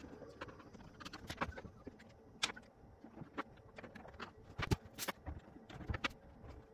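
Scattered light knocks and clicks, about a dozen at uneven intervals, like tools and parts being handled and set down.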